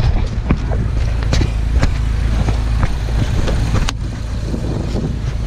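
Wind rumbling on a handheld camera's microphone, with scattered knocks as the camera is handled.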